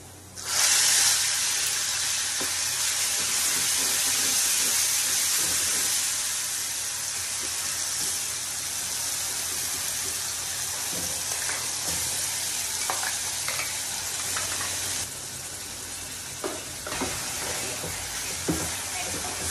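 Ground tomato paste dropped into hot tempering oil in a metal kadai, sizzling loudly. The sizzle starts suddenly about half a second in and keeps on, easing off a little later. In the second half a metal spoon stirs the mixture, scraping and clinking against the pan a few times.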